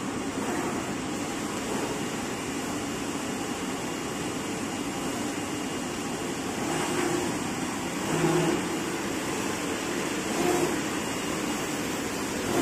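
AOKE CNC flatbed digital cutter running, a steady whirring drone with a few short louder swells in the second half.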